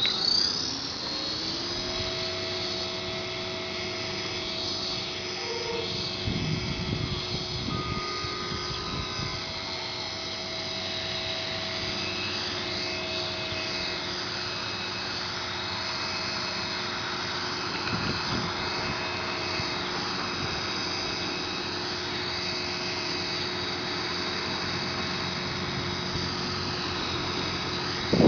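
HK450 electric RC model helicopter hovering: the steady high whine of its motor and spinning rotor. The pitch rises briefly at the start, then holds steady.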